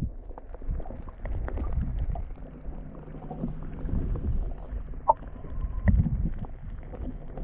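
Muffled underwater sound from a submerged camera: a low water rumble with scattered faint clicks and knocks, and a steady low hum lasting about a second and a half near three seconds in.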